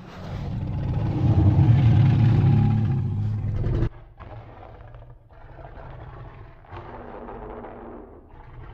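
Deep, low-pitched monster growl sound effect for Godzilla, swelling for about four seconds and cutting off suddenly, followed by quieter low rumbling growls.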